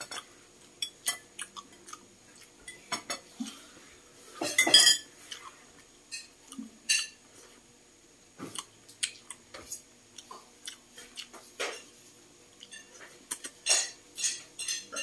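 Eating at a table: a spoon and dishes clink and clatter now and then, with chewing in between. The loudest clatter comes about four and a half seconds in.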